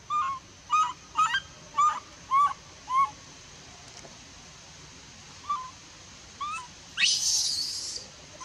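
Baby macaque crying: a run of six short, pitched whimpering calls about two a second, then two more after a pause, ending in a longer, louder harsh cry near the end.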